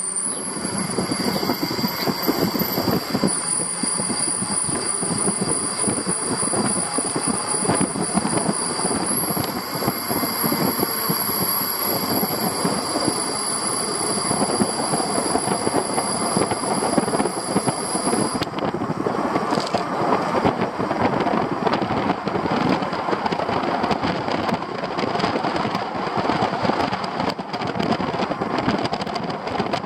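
Wind buffeting the microphone, with road and engine noise and rattling from an open vehicle riding down a mountain road. A thin high whine shifts pitch in steps and stops about two-thirds of the way through.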